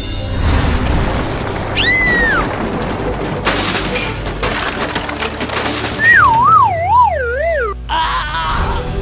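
Background music with added cartoon sound effects: a short falling whistle about two seconds in, then a louder wavering tone that slides downward from about six seconds to nearly eight.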